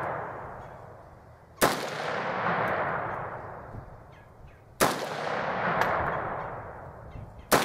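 Three single rifle shots from an AK-47-pattern rifle, about three seconds apart, each a sharp crack followed by a long echo that fades away.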